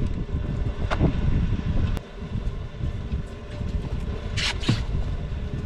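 Wind buffeting the camera microphone, giving a low, uneven rumble. A short knock comes about a second in, and two quick sharp handling sounds come near the end.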